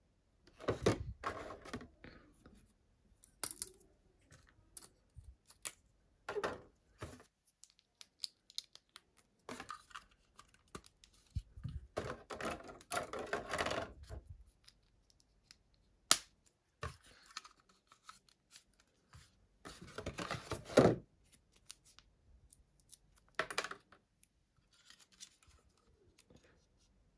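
Hands handling the pink plastic parts of a Bandai Pokémon quick model kit Jigglypuff and its cardboard box: irregular scraping and rustling with sharp clicks, including a single sharp click about sixteen seconds in and the loudest stretch around twenty seconds in.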